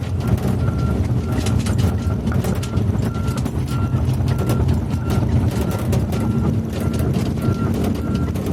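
Volvo EC210 excavator's diesel engine running steadily, with its warning alarm beeping evenly about twice a second over frequent sharp clicks and clanks.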